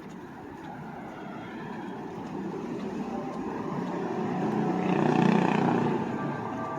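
A vehicle driving past on the street, growing louder to a peak about five seconds in and then fading.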